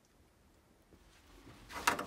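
Quiet rustling of handling, building into a single sharp clack near the end as tools and boiler parts are handled.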